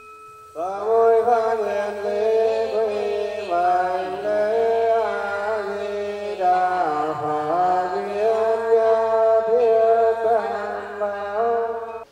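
Traditional ceremonial music: a sustained, ornamented melody of long held, wavering notes over a low drone. It starts about half a second in, as a steady ringing tone stops.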